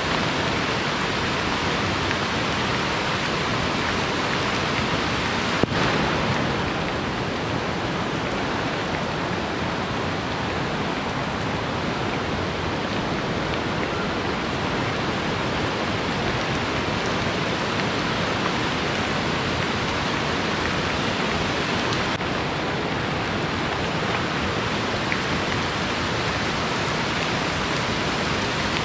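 Steady rain falling with a rushing river, an even hiss of water, with one brief knock about six seconds in.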